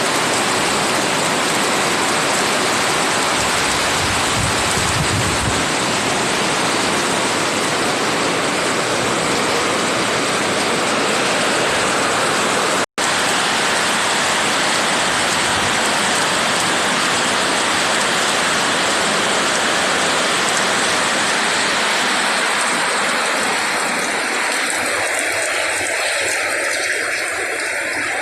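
Heavy rain falling steadily, a dense even hiss, broken once by a momentary cut to silence about thirteen seconds in.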